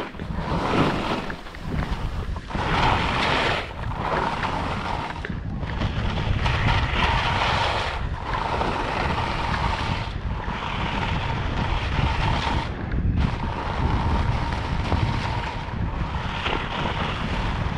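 Ogasaka skis scraping over hard, icy, wind-crusted snow on a fast descent, surging with each turn over the first few seconds and then running steadier, with wind rushing over the microphone.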